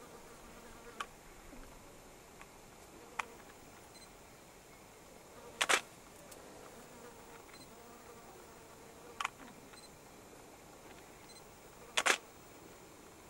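Faint steady hiss broken by about five sharp clicks a few seconds apart, two of them doubled.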